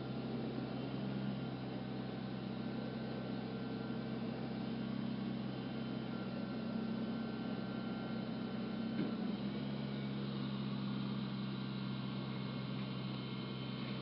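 Steady engine hum with a constant low drone, its pitch shifting slightly about nine seconds in.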